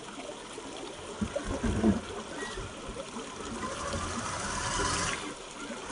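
Creek water trickling and running over rocks, with a few low thumps about two seconds in.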